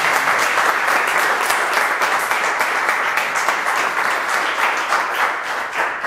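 Audience applauding, a steady patter of many hands clapping that tails off at the very end.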